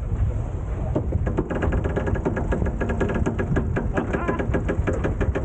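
Sailing winch being ground to trim a sheet, its pawls clicking rapidly from about a second in, over steady wind rumble on the microphone.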